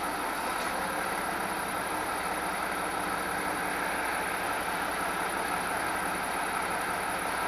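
Heavy fire-brigade mobile crane truck's diesel engine running steadily as the truck rolls slowly forward.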